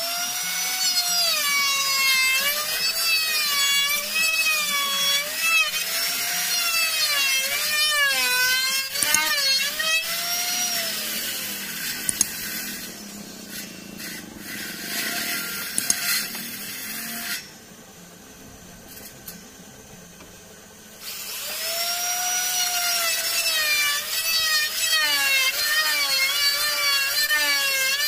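Electric plunge router cutting a mortise in wood along a jig, its motor whine rising and falling in pitch as the bit bites into the wood. The sound drops away for a few seconds past the middle, then the router runs loudly again near the end.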